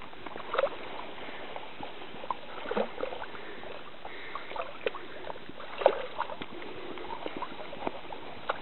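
Cocker spaniel moving through a small pool, the water sloshing and splashing in small irregular splashes over a faint steady hiss.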